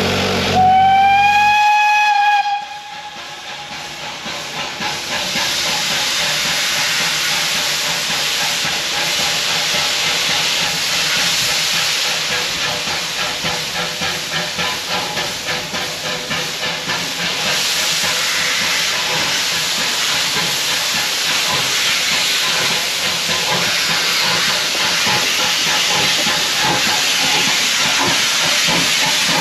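Steam locomotive whistle sounding one blast of about two seconds, its pitch rising slightly at the start, then loud steam hiss with rhythmic exhaust beats as the locomotive moves off.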